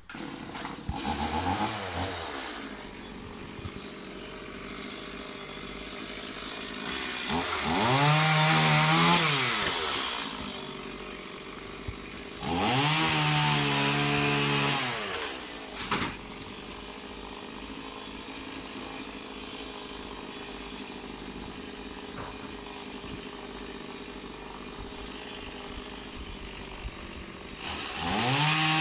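Chainsaw cutting into the top of a coconut palm trunk, running at a steady idle and revving up four times. The first rev is short; the others last about three seconds each, rising in pitch, holding and falling back.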